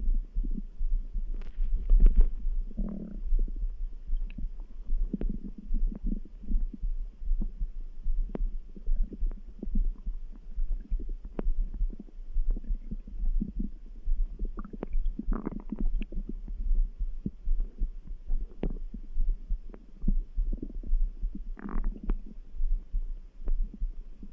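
Stomach gurgling and rumbling in irregular bursts, a few louder ones rising higher in pitch, over a steady low thudding heartbeat.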